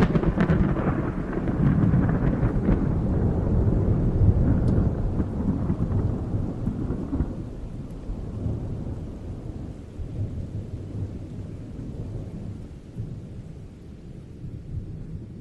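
A long roll of thunder: a crackling peal at the start gives way to a deep rumble that slowly fades over the following seconds.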